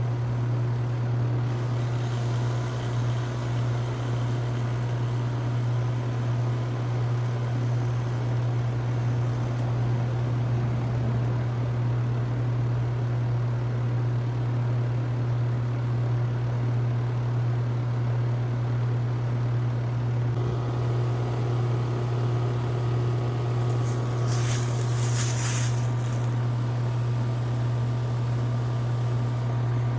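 Outdoor unit of a 2017 two-ton Rheem Classic RP14 heat pump running steadily in cooling mode, a constant low hum with a noisy whir. About twenty seconds in, a faint higher tone joins the hum, and a brief high-pitched sound comes and goes a few seconds later.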